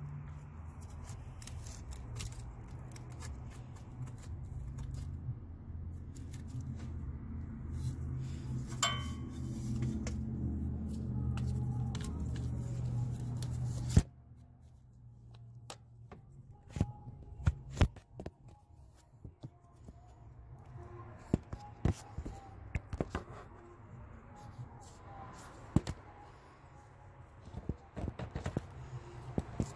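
Metal hand tools clicking and tapping on the valve train as a valve adjusting tool and feeler gauge work the rocker arm adjusting screws of a Honda/Acura 3.2L V6. A steady low hum runs under the first half and stops with a sharp click about halfway through, after which the irregular tool clicks stand out more clearly.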